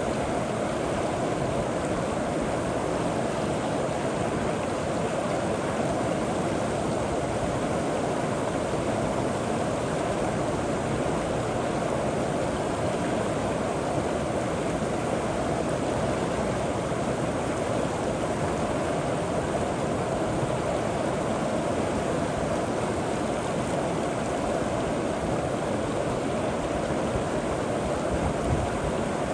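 River water flowing steadily, a continuous even rushing with no breaks, fullest in its lower middle range.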